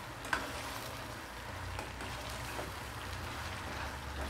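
Red chilli and garlic paste sizzling in hot oil in a stainless steel kadhai as it cooks down, stirred with a metal spatula. A few light clicks of the spatula on the pan, the sharpest about a third of a second in.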